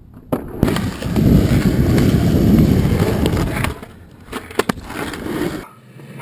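Skateboard wheels rolling loudly over rough concrete, punctuated by sharp clacks of the board's tail and wheels hitting the ground. The rolling quiets about two-thirds of the way through and stops near the end.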